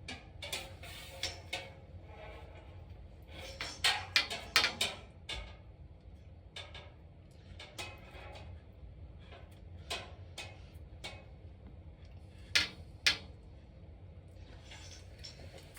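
Scattered knocks and clatters of hard objects, with a quick cluster about four seconds in and two sharp knocks near the thirteen-second mark, over a low steady hum.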